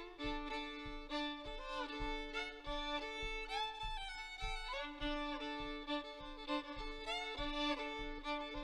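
Fiddle playing a tune: a bowed melody with slides between notes over a steady held drone note, with faint low thumps keeping a beat underneath.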